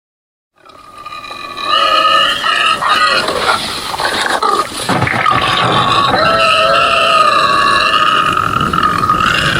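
A loud, high-pitched wavering squeal from a voice, starting abruptly about half a second in. It goes on for several seconds, with a rougher, grunting stretch in the middle.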